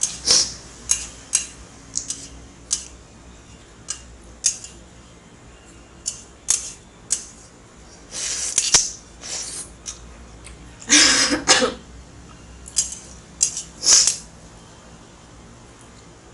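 Someone eating instant ramen noodles: scattered sharp clicks of utensils against the bowl, with a few longer slurps. The loudest slurp comes about eleven seconds in.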